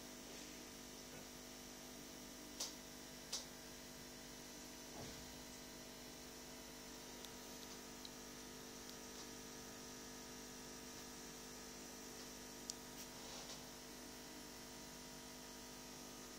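Faint steady electrical hum, with a few short sharp clicks: two a little under a second apart about three seconds in, and one more later on.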